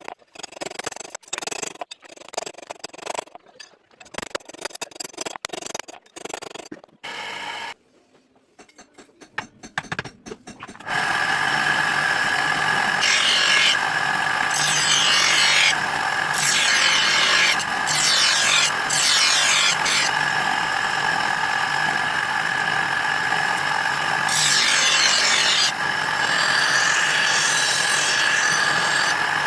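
Quick scraping strokes of metal-working, then a power grinder starts and runs steadily with a high whine. Repeated hissing bursts of a second or so come as the steel blade is pressed against it.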